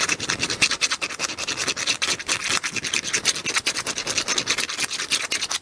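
Small hand file rasping quickly back and forth inside a hole, filing out a burr that stops the part sliding onto a smooth rod. The filing stops abruptly at the end.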